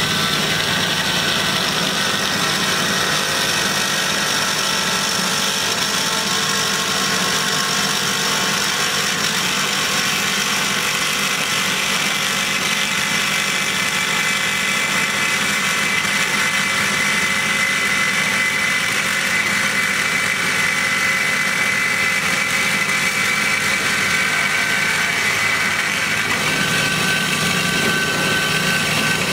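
Hyd-Mech S-23A horizontal mitering band saw running steadily with a high whine that wavers in pitch. A second thin, steady tone joins near the end.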